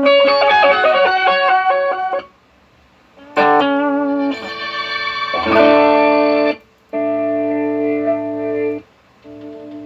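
Electric guitar played through a Fractal FM3 amp modeler, sounding normally after its power supply board was replaced. It plays a quick run of notes, pauses, then a longer phrase and held, ringing chords with short breaks between them.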